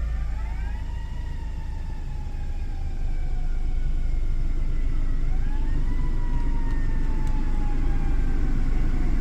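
A siren wails twice, each time rising quickly and then falling slowly, over the steady low rumble of the 2017 Ford Fusion's 2.0 EcoBoost engine idling.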